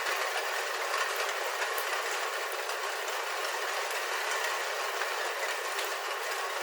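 Rain falling on a roof, heard from inside: a steady, dense patter of drops.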